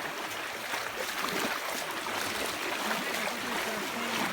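Shallow stream water running in a steady wash, with a person's voice faintly heard near the end.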